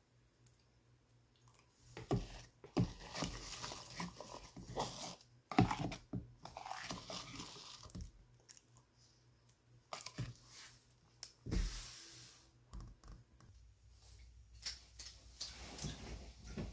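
Close-up eating sounds of a man spooning and chewing banana pudding ice cream with cookie pieces, in irregular bursts with short clicks between them.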